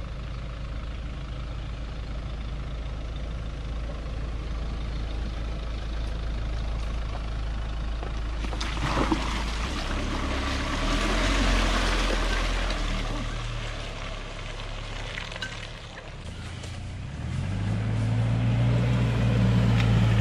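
Engines of off-road 4x4s working on a muddy trail. First a Suzuki Jimny's engine runs as it creeps down the ruts, and about nine seconds in there is a rush of splashing mud and tyre noise as it ploughs through the mud. Near the end a Mitsubishi Pajero's engine revs up and grows louder as it climbs a bank.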